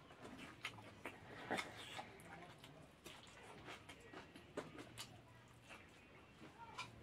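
Close-miked mouth sounds of a man eating rice with his fingers: soft chewing and lip smacks, heard as faint, irregular wet clicks.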